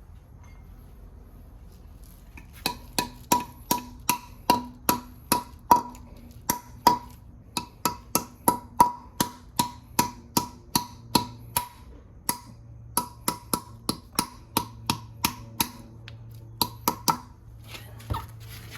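Hammer striking metal over and over, about three sharp ringing blows a second, with a short pause about two-thirds through.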